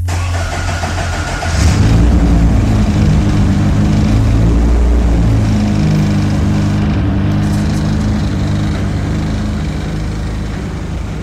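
Car engine started with its starter and catching about two seconds in, then running steadily and slowly fading.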